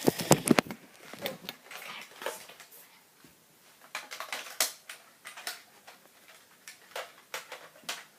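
Scattered light clicks and knocks of objects being handled, with a quick cluster of sharper clicks in the first second.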